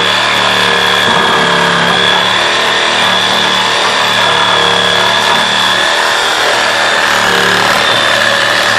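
Reciprocating saw running steadily, its blade cutting through the MDF wall of a subwoofer enclosure: a constant high motor whine over the rasp of the cut.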